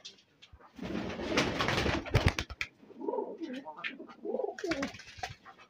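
Punjabi high-flyer pigeons in a loft cooing, with a burst of rustling and wing-flapping about a second in and another short flurry near the end.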